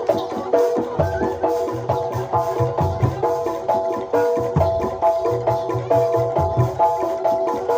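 Jaranan Dor ensemble music: pitched metal gamelan-style percussion plays a fast, repeating pattern of short notes over steady low drum beats.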